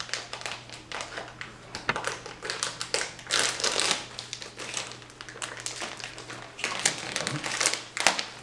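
Almond flour being scooped and poured with a measuring cup, its packaging crinkling: a string of short, irregular rustles and scrapes, busiest about halfway through and again near the end.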